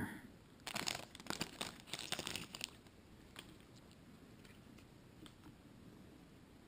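Trading-card pack wrapper crinkling as it is handled and torn open, a dense crackle for about two seconds, then a few faint ticks of cards being handled.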